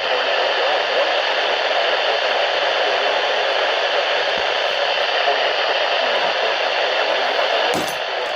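Steady static hiss from a weather radio receiver, an even band of radio noise with no clear voice in it.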